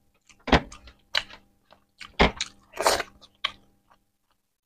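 Close-up eating sounds of a mouthful of rice and egg curry taken by hand: a few short wet smacks and chews, with a longer breathy hiss about three seconds in.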